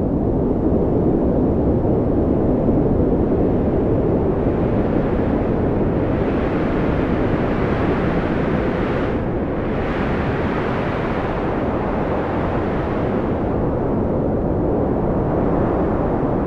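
Strong wind blowing as a steady, deep rushing noise, swelling a little at the start.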